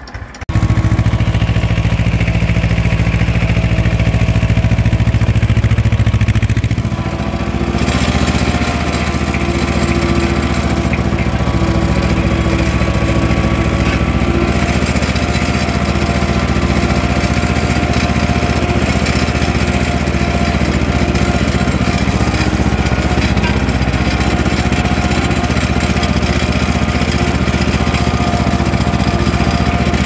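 Ursus C-330M tractor's two-cylinder diesel engine running steadily under load, pulling a cultivator through the soil, heard from the driver's seat; the sound dips briefly about seven seconds in.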